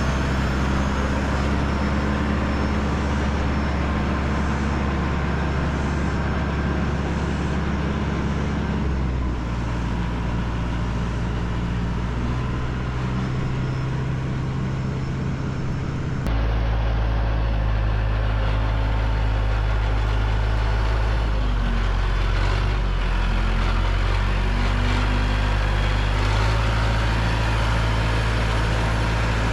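Tractor engine running steadily under way. Its note shifts about nine seconds in and changes suddenly, lower and heavier, about sixteen seconds in.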